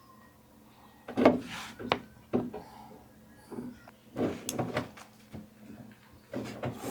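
A few short clicks and knocks with light rustling as a wire's pin contact is pushed into a socket of a Cannon-style bulkhead connector and the wires are handled.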